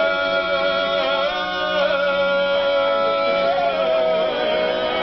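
A group of men singing a Georgian table song unaccompanied, several voices holding long sustained notes over a low steady note, changing pitch together now and then.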